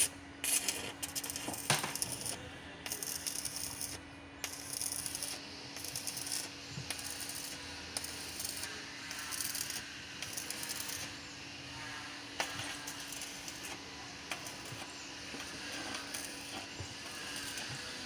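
Electric arc welding: the arc crackling and sizzling in irregular bursts, over a steady low hum.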